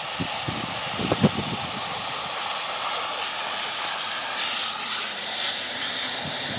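Garden hose spray nozzle running, a steady hiss of water spray, with a few faint knocks about a second in.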